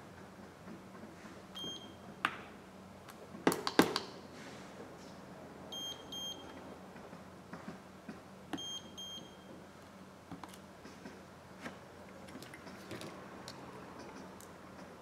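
A handheld phone screen tester gives short high electronic beeps: one single beep, then two quick pairs a few seconds apart. The loudest sounds are a cluster of sharp clicks and knocks between the first beep and the first pair, as the phone display is handled against the tester.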